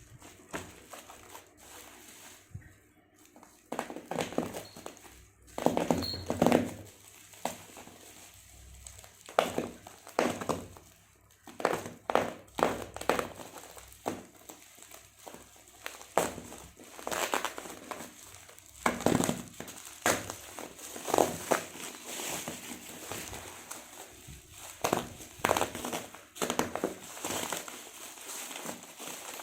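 Packaging being handled and unwrapped, crinkling and rustling in irregular bursts, with occasional knocks.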